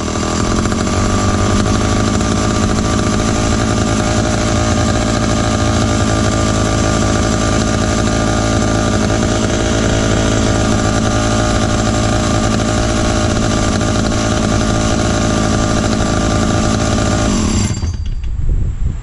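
Two-stroke engine of a restored Dayton 2Z383 (Lancaster 40IL) chainsaw running steadily at a constant speed, then cutting off suddenly near the end.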